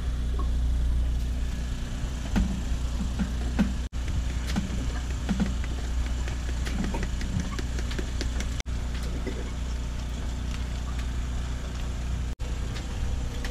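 Steady low mechanical hum with light clicks and taps over it. The hum drops out briefly three times.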